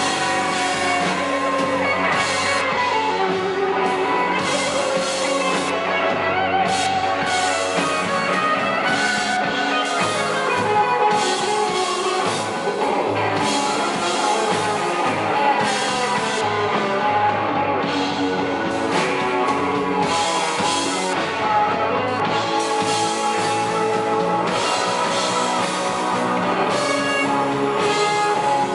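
Rock band playing live: electric guitar, bass guitar and drum kit.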